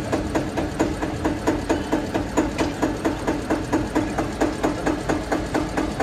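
Tractor's diesel engine idling, with an even, steady knock of about four beats a second.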